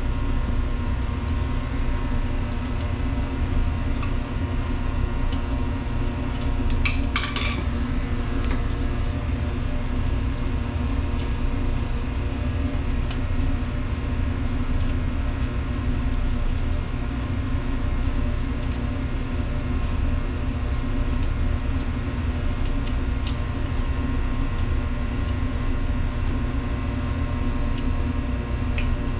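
Steady hum of machinery in a commercial kitchen, with a brief light metallic clink about seven seconds in.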